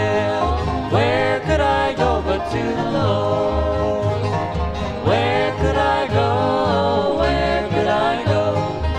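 Bluegrass band playing: banjo and guitar picking over a steady upright-bass beat, with a lead line that slides up and down in pitch.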